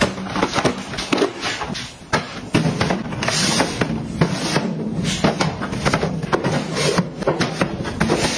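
Hands handling packaged toiletries and white plastic storage bins: a run of light clacks and knocks as boxes and plastic refill pouches are set into a bin and bins are pushed into place on a shelf, with crinkly packaging rustle.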